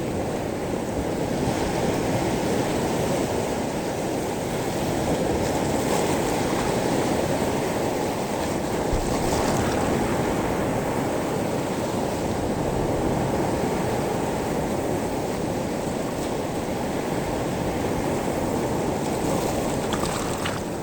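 Sea waves washing over a pebble beach: a steady rush of surf with a few brief, higher washes.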